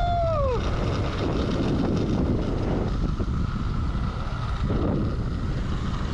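Wind buffeting the microphone during a fast zip line ride, with a steady high whine running underneath. A short falling tone sounds at the very start.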